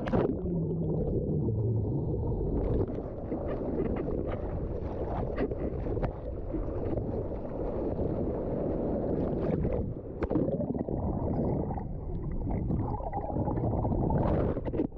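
Steady low rumble of wind and breaking surf on the camera microphone, with a few brief knocks.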